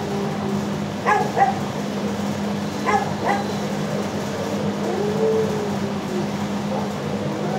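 Dogs in shelter kennels barking, in two short bursts about a second in and about three seconds in. A long whining howl rises and falls about five seconds in, over a steady low hum.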